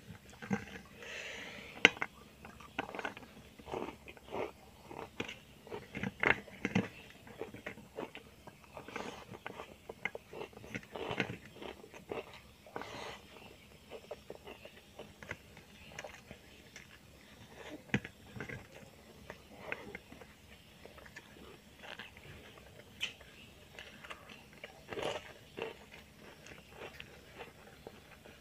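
A person eating close to the microphone: irregular chewing and biting with crunches, over a meal of stingray in spicy sambal with crackers.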